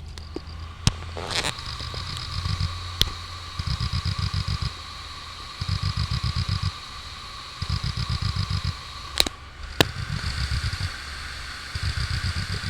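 New Hitachi 2 TB hard drive heard through a phone pressed against it: repeating bursts of rapid ticking, about eight ticks a second, each burst lasting about a second and coming back every two seconds or so over a steady hum. The owner hears it as the read/write head knocking, a sign that the new drive is faulty. A few sharp single knocks stand out among the bursts.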